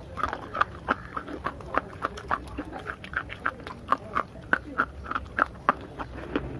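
Close-miked crunching and chewing of dried clay pieces coated in wet clay paste: sharp crunches about three a second, with wet mouth sounds between them.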